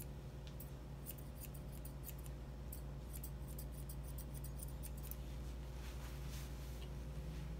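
Straight grooming shears snipping through a Bichon puppy's coat around the head, a quick run of crisp snips that stops about five seconds in, over a steady low hum.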